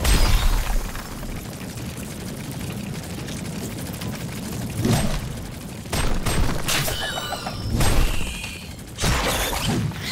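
Action sound effects of a scorpion fighting a swarm of ants: about half a dozen heavy booming impacts and crashes, with a few short high squeals over a low rumble.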